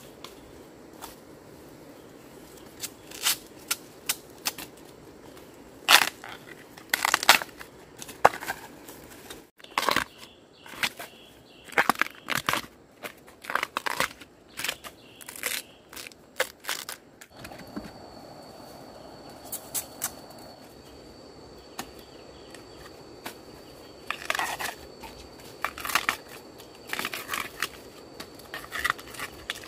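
Irregular crackling and snapping as the papery husks are peeled off fresh bamboo shoots by hand, mixed with the rustle and crunch of dry bamboo leaves underfoot. A faint steady high tone comes in a little past halfway.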